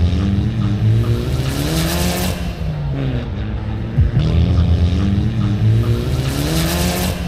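Mitsubishi Lancer Evolution rally car's turbocharged four-cylinder engine revving hard through gear changes on a dirt track, its pitch climbing and dropping again and again. Tyre and gravel noise hisses in about two seconds in and again near the end, and there is a sharp crack about four seconds in.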